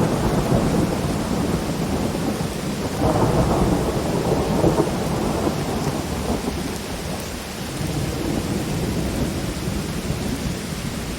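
Heavy rain falling steadily under rolling thunder; a rumble of thunder swells about three seconds in and dies away over the next few seconds.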